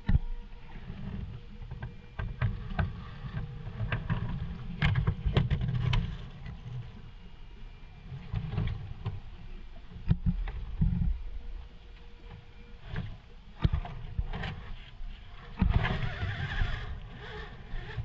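Radio-controlled scale rock crawler picking its way through a rocky creek: irregular knocks and clatters of its tyres and chassis on wet rock, with splashes of water and low rumbling surges, the busiest splash-like stretch near the end.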